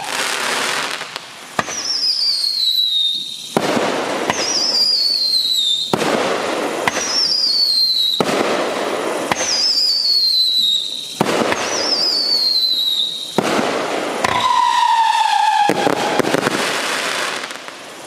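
Magnus 'Midnight Howling' 500-gram consumer fireworks cake firing shot after shot, each a falling howling whistle followed by a crackling burst, about every two and a half seconds. The last whistle is lower-pitched, and the crackle dies away near the end as the cake finishes.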